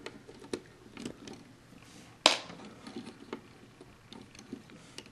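Small plastic LEGO pieces being handled and pressed together on a small build: scattered light clicks, with one sharper snap a little over two seconds in.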